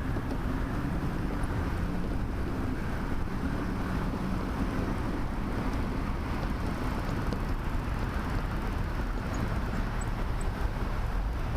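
Steady wind noise buffeting the microphone of a rear-facing camera on a moving bicycle, with a low road rumble underneath and no single event standing out.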